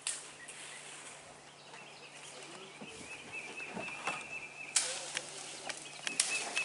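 Outdoor background with a steady high-pitched buzz and a few sharp clicks and knocks, the loudest about two-thirds of the way through.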